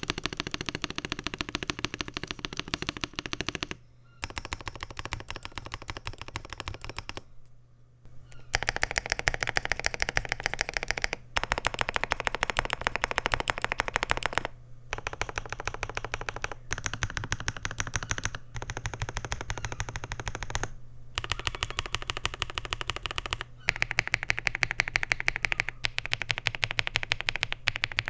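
Ajazz AK980 mechanical keyboard with Huano Gift V2 switches on an FR4 plate, with PBT keycaps, being typed on fast: dense streams of key clicks in several runs, broken by short pauses.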